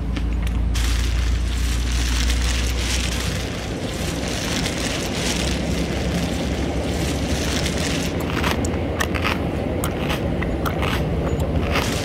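Steady low rumble and hiss of a tram in motion, heard from inside the passenger cabin. A run of sharp clicks and rattles comes in over the last few seconds.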